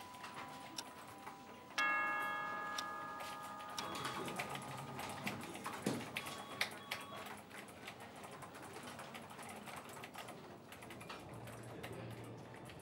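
Office sounds of computer keyboards typing, with a clock ticking; a ringing pitched tone starts about two seconds in and is the loudest thing.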